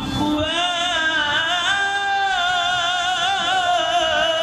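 A man reciting the Quran in the melodic tajweed style, drawing out one long note with wavering ornaments that begins just after the start and trails off near the end.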